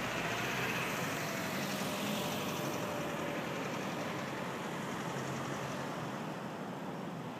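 Steady outdoor background noise at night: an even rushing sound with a faint low hum underneath and no thunderclap.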